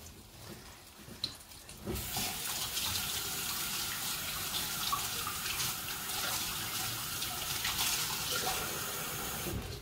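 Kitchen tap running into a sink: a steady rush of water that starts abruptly about two seconds in and stops just before the end.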